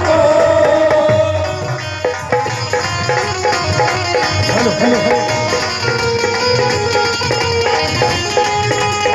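Hindi devotional bhajan music, instrumental: tabla drumming in a steady rhythm under a melody instrument that holds and moves between notes.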